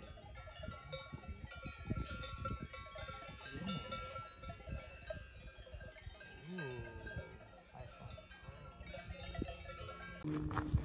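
Cowbells on grazing cattle ringing on and off, many overlapping bell tones.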